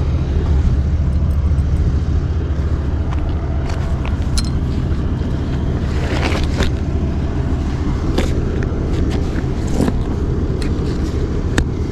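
A vehicle engine idles steadily with a low rumble. Over it come short rustles and clicks of the rolled vinyl tarp and the bungee cord being handled and hooked, several times.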